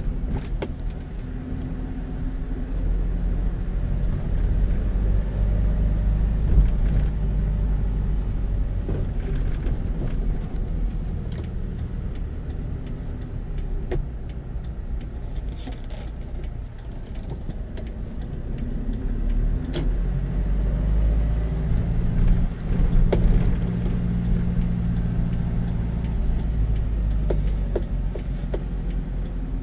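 A car driving slowly through city streets: a steady low rumble of engine and tyres, with a hum that rises and falls in pitch as the speed changes. Light rattling clicks come and go, more of them near the end.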